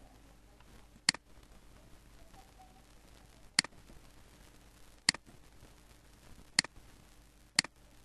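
Five sharp single computer mouse clicks, spaced irregularly one to two and a half seconds apart, over faint room tone.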